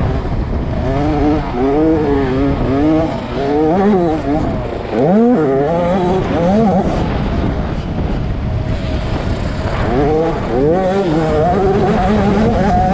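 A 65 cc two-stroke motocross bike engine, heard close up, revving up and easing off again and again under throttle, with one especially sharp climb about five seconds in.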